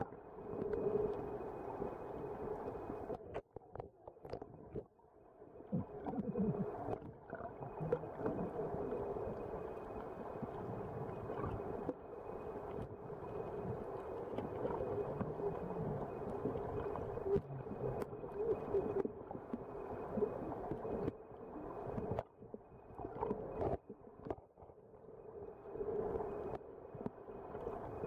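Muffled underwater sound picked up by a waterproof compact camera held under water: a steady low hum and wash of water. Twice it drops away for a second or two.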